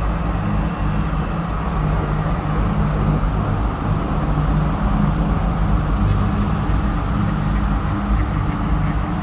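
Horror ambience track: a steady, low rumbling drone with held low tones under a dense rushing noise, with no distinct events.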